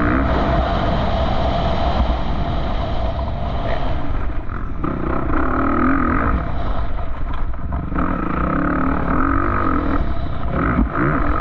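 Off-road vehicle engine running under a heavy low rumble, its pitch rising and falling as the revs change, with stronger revving stretches about halfway through and again near the end.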